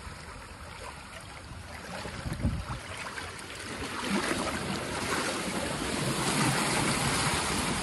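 Sea surf washing against a rocky cliff face, a steady rushing wash that swells louder about halfway through, with wind rumbling on the microphone.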